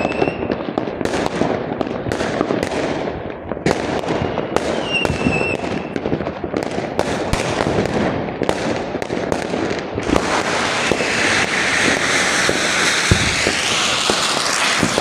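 Aerial fireworks going off in rapid succession, many sharp bangs close together. About ten seconds in they give way to a dense, continuous crackle.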